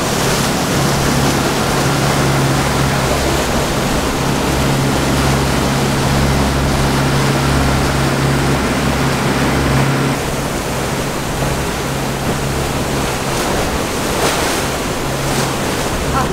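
Charter fishing boat's twin engines running steadily under way, a low hum, with a loud rush of wind and water past the hull. The deepest rumble eases a little about ten seconds in.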